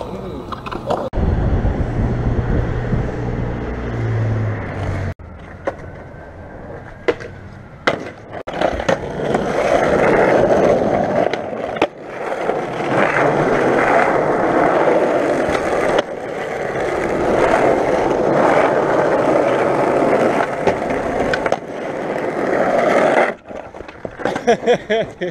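Skateboard wheels rolling over concrete and asphalt, with scattered sharp clacks of the board, in a string of short clips that start and stop abruptly.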